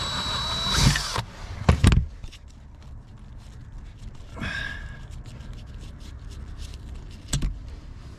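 Cordless power drill driving a self-tapping screw into a steel bracket, running with a thin high whine and stopping about a second in. Two sharp knocks follow, then light handling noise.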